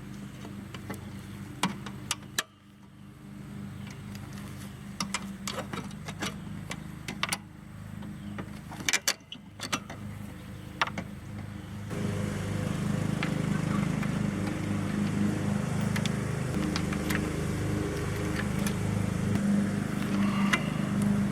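Scattered sharp metal clicks and clinks of hand tools working on a bench seat's steel frame, over a steady motor hum that steps up louder about twelve seconds in.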